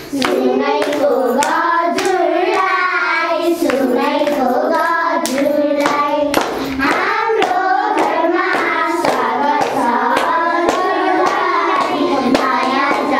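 Children singing a song together, with hand claps sounding through it.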